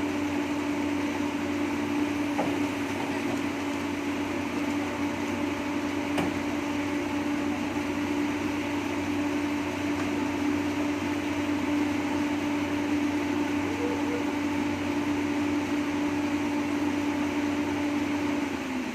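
Heavy diesel machinery running steadily at a constant speed, a droning hum with a steady pitched whine over it.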